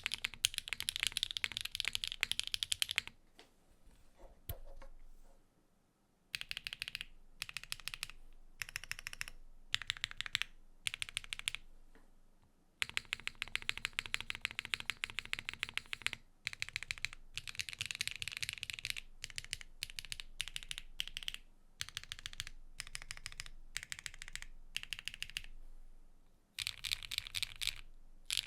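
Typing on a Neo65 Cu mechanical keyboard with a carbon-fibre plate and HMX Tequila switches: fast runs of keystrokes broken by short pauses, with a longer pause of about three seconds a few seconds in.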